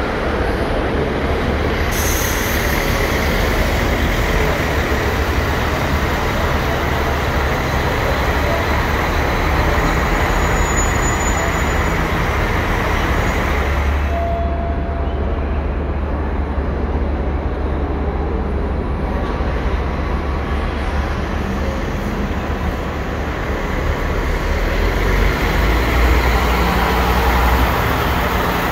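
Buses' diesel engines running and moving through a busy bus station: a steady, loud rumble of engines and traffic.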